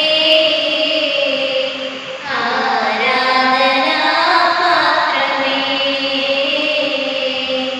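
A hymn sung by a high voice in long, slow held notes, with a short pause about two seconds in.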